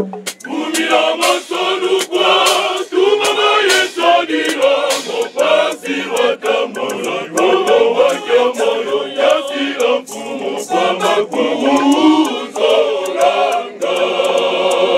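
Men's choir singing unaccompanied in short, rhythmic phrases broken by brief gaps, with sharp clicks between them.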